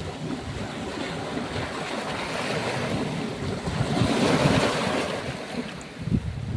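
Ocean surf: waves washing in, the rush of water swelling to its loudest about two-thirds of the way through, then easing and building again near the end. Wind buffets the microphone with a low rumble.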